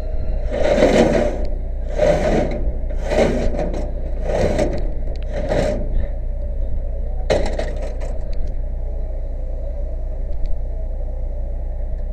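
A wooden roof ladder being slid out of a fire engine's ladder rack: five scrapes about a second apart, then one sharp clatter about seven seconds in. A steady low rumble runs underneath.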